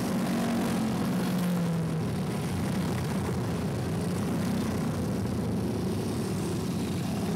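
A steady engine drone, unchanging in level, over outdoor background noise.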